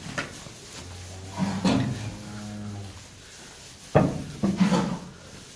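A cow lowing once, a low, steady moo of about two seconds starting about a second in. About four seconds in comes a sharp knock, followed by a short pitched sound.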